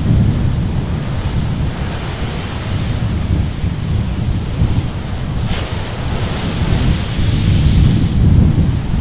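Ocean surf: waves breaking and washing up the beach, with wind buffeting the microphone as a steady low rumble. The wash swells louder near the end.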